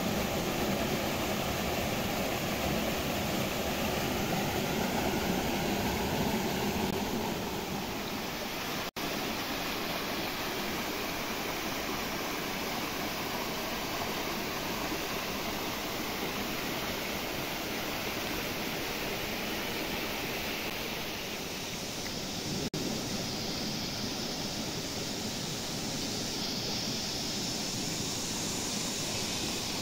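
Steady rushing of a small waterfall and mountain stream running over rocks, briefly cutting out about nine seconds in.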